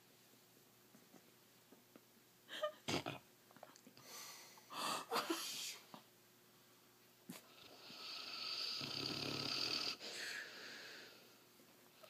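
A sleeping mastiff-type dog snoring in uneven, wheezy snorts: quiet for the first couple of seconds, then several short snorts, and near the end one long wheezing snore of about two seconds.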